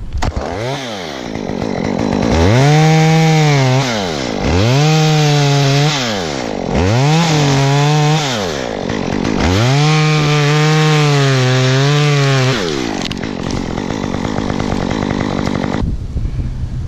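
Chainsaw engine revved to high speed in four long bursts, its pitch climbing fast, holding, then dropping back between bursts. After about 13 seconds it settles to a lower, steadier running sound.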